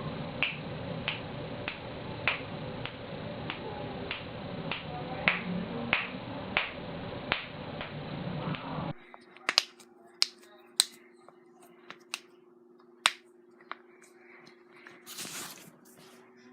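Joints cracking: a string of sharp pops at a steady pace, a little under two a second, then, after a cut, scattered single pops of knuckles being cracked over a low steady hum.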